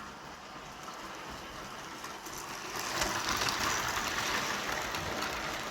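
OO gauge model locomotive running on the layout's track: the steady whirr of its motor and the rush of its wheels on the rails, growing louder about three seconds in as it comes near.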